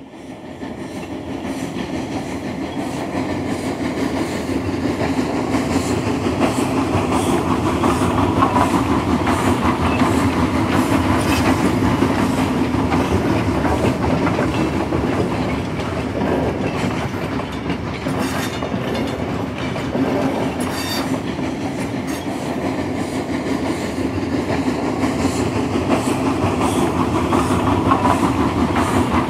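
O-gauge three-rail model train running on its track: a steady rumble with wheel clatter, fading in over the first few seconds.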